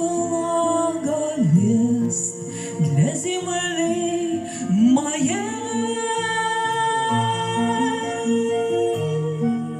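Song: a voice singing a slow phrase with sliding, ornamented notes over steady instrumental backing, settling into one long held note about halfway in.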